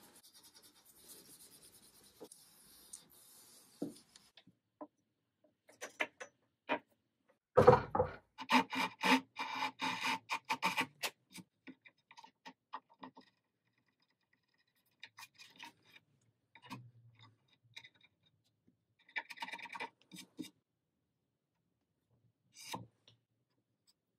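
Faint rubbing of fine steel wool on a varnished wood panel. About eight seconds in there is a sharp knock, then a quick run of short saw strokes as a Japanese pull saw works the edge of a veneered wood panel. Later come scattered short scraping strokes and light ticks at the panel's edge.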